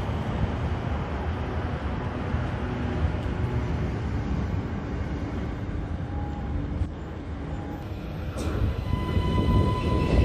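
SBB intercity coaches rolling past along the platform, a steady rumble of wheels on rail. About two-thirds of the way in, an SBB double-deck electric train comes through and the sound swells, with a steady high whine joining near the end.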